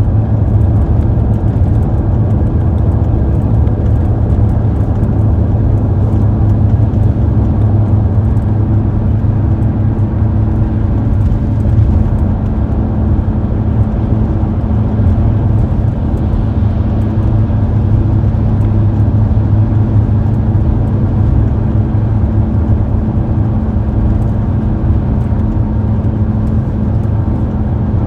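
Steady low road and engine rumble of a car driving on a highway, heard from inside the cabin.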